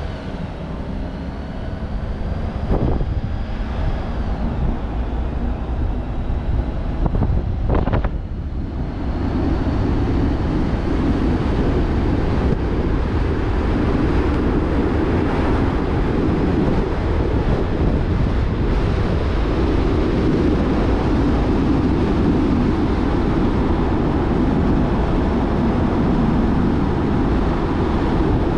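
Jeep Wrangler Rubicon driving: engine, tyre and wind noise, with the engine's pitch rising over the first few seconds. A short thump comes about eight seconds in, and after it the rush of wind and road noise is louder and steady.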